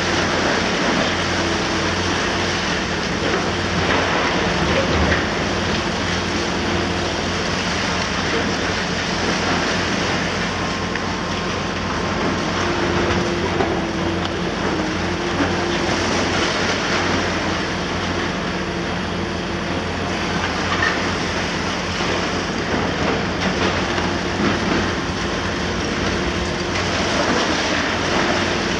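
Liebherr R960 demolition excavator's diesel engine running steadily under working load as its long-reach front tears into the building's concrete and steel, with crunching, scattered knocks of debris and a higher tone coming and going.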